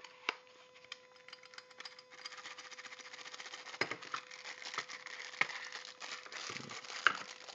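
Packaging being opened by hand: crinkling and rustling with scattered clicks and taps, denser from about two seconds in.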